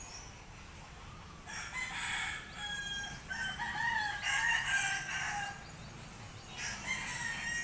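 Rooster crowing: one long, drawn-out crow through the middle, and another starting near the end.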